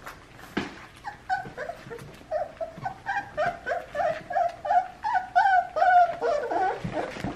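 Three-week-old American bully puppies whimpering and whining in a rapid string of short, high cries, several a second, crying for the food being hand-fed to them.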